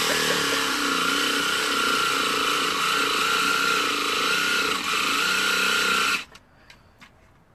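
Small electric jigsaw cutting into a pumpkin, its motor running steadily with a whine that wavers slightly under load, then switched off about six seconds in, followed by a few faint clicks.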